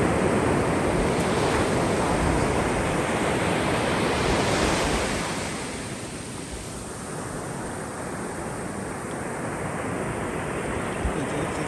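Ocean surf on a sandy beach: waves breaking and washing up the sand, loudest about four to five seconds in, then easing to a softer wash.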